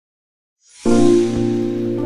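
Silence, then background music starts just over half a second in: a brief rush of high hiss leads into a loud, sustained chord that holds.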